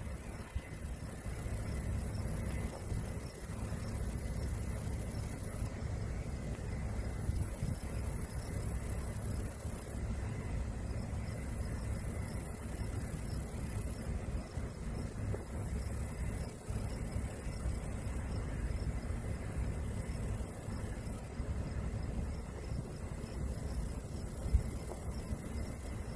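Case IH combine harvester running steadily while picking up barley: a continuous low rumble, with a high hiss that steps louder and softer every few seconds.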